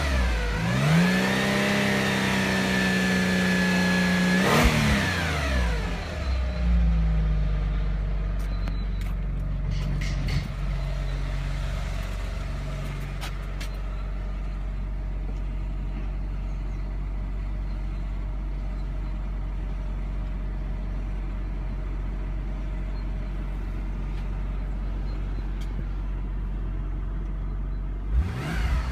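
Audi A6 Allroad's 2.7-litre twin-turbo V6 held at high revs for a few seconds, then dropping back to a steady idle for most of the time, heard more muffled from inside the cabin. Near the end it is revved up sharply again.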